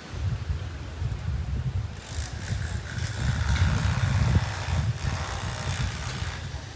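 Wind buffeting the microphone: an uneven low rumble, with a faint hiss of breeze over it.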